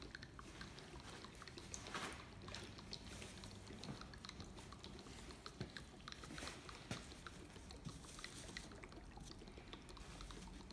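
Battery acid glugging faintly as it drains from an upended six-bottle acid pack into the cells of a new motorcycle battery, with irregular small pops as air bubbles up into the pack while the cells fill.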